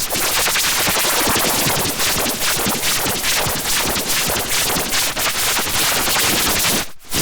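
Heavily distorted edit of a logo jingle: a dense, rapid stream of crackling hits like machine-gun fire over music, cutting out briefly near the end.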